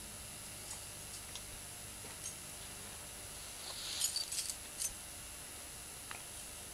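Steady background hiss with a few faint scattered clicks, and a quick cluster of sharp, high clicks about four seconds in.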